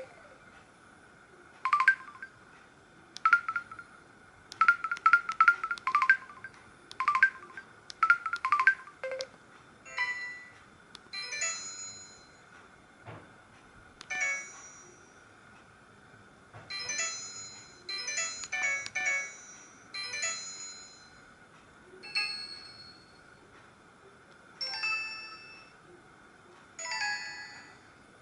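Samsung SGH-E900 mobile phone playing one of its built-in ringtones. It opens with quick clusters of short, sharp notes, and from about ten seconds in changes to single ringing notes spaced a second or two apart.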